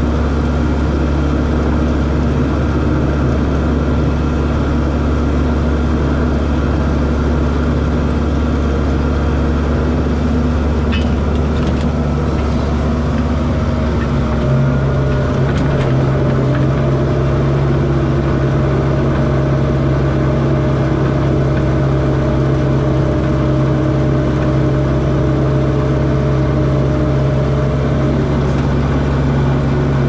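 Skid steer engine running steadily, heard from inside the cab, as the machine pushes manure down a concrete barn alley. About halfway through the engine note steps up and then holds steady.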